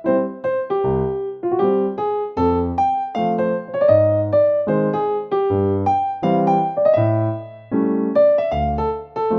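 Background music played on piano or electric piano: a light melody over a bass line, notes struck at about two a second.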